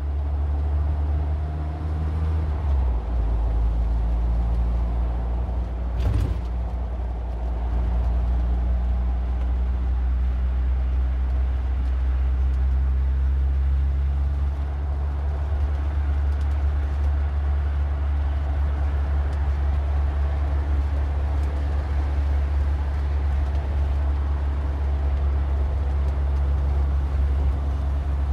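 Car driving, with a steady low engine and road rumble; the engine note shifts about two and a half seconds in, and a short knock comes about six seconds in.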